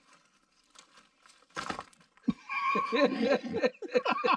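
Faint crackle and rustle of sticks being laid over burning birch bark kindling, with a sharp clatter of wood about one and a half seconds in. People's voices take over and are the loudest sound from about two seconds in.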